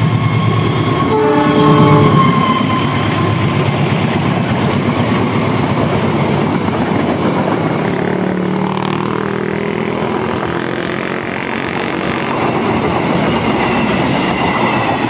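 A KAI diesel-electric locomotive hauling a long-distance passenger train gives one multi-tone horn blast about a second in, then the train runs past close by, the coaches' wheels rumbling and clacking over the rails.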